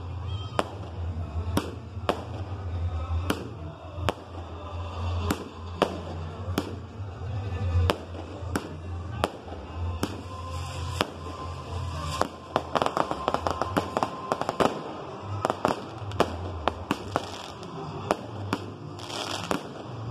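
Aerial fireworks bursting in steady succession, a sharp bang about every second, with stretches of dense crackling about halfway through and again near the end, over a steady low hum.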